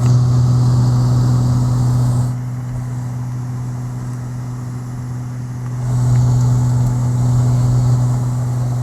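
Cockpit drone of a Beechcraft G58 Baron's twin six-cylinder Continental IO-550 engines and propellers in flight: a steady low hum with a hiss of rushing air that swells for the first two seconds, drops back, and swells again about six seconds in.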